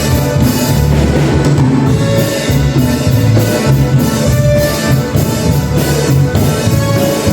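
Band music played on instruments: a drum kit keeping a steady beat under a strong bass line, with sustained notes from other instruments.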